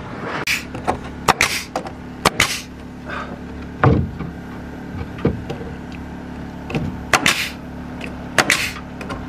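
Pneumatic nail gun firing nails into wooden soffit boards: about half a dozen sharp shots, several in quick pairs, each with a short puff of exhaust air, over a steady low hum.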